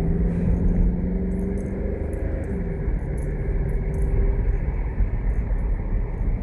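Car engine and road noise while driving, a steady low rumble whose engine note dips about two and a half seconds in.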